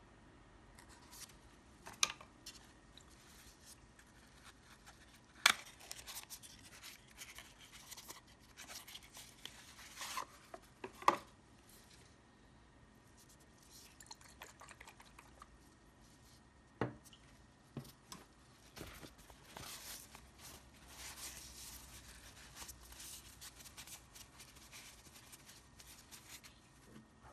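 Gloved hands handling paper and small plastic items: rustling and crinkling, with a few sharp clicks and taps, the loudest about five and eleven seconds in.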